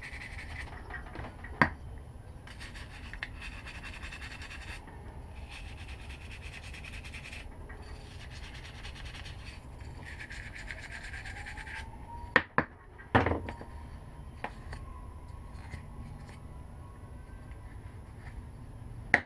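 Old, brittle gasket material being scraped off a lawn mower carburetor's mating surface: repeated rubbing and scratching strokes as the dried gasket crumbles to dust, with a few sharp clicks of the tool on the metal.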